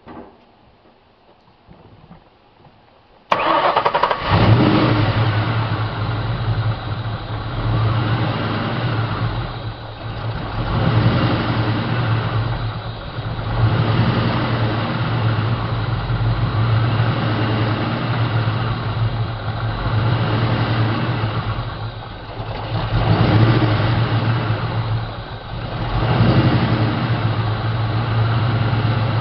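The Ford 4.6 L V8 of a 1998 Mustang starts suddenly about three seconds in and then keeps running. Its level rises and falls every few seconds.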